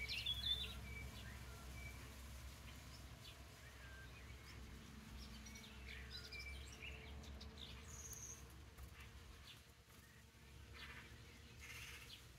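Small songbirds giving short, scattered chirps and calls, faint, with a brief high call about eight seconds in.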